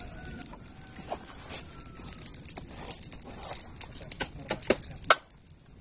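Scattered clicks and knocks of a sheathed machete and camp cookware being handled on a ground mat, the sharpest two about five seconds in, over a steady high-pitched whine.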